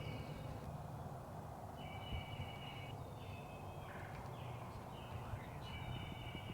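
Wild turkey calling several times, each call about a second long, over a steady low rumble of wind on the microphone.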